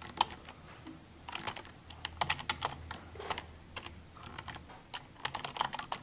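Typing on a computer keyboard: irregular runs of quick key clicks separated by short pauses.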